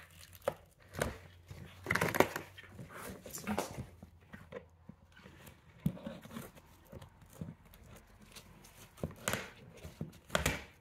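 Scissors snipping and scraping at a white plastic tie through a slot in a cardboard box, with irregular clicks and rustles of the cardboard. A few louder snips come about two seconds in and near the end.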